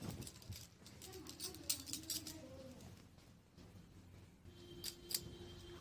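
Cloth rustling as a gown is unfolded and held up by hand: scattered short, crisp rustles, with a cluster in the first two seconds and another about five seconds in.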